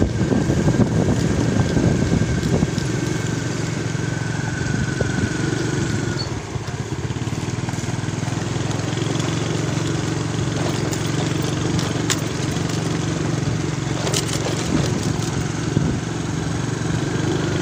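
Motorcycle engine running steadily at cruising speed, heard from on the bike with wind and road noise. A few sharp knocks and rattles come in the second half as the bike rides over the broken, gravelly road.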